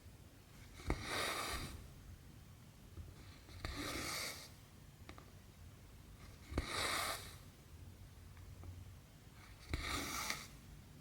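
Needle and cotton thread stitching cross-stitch fabric: four times, a sharp tick as the needle pierces the cloth, followed by about half a second of rasping swish as the thread is drawn through, spaced roughly three seconds apart.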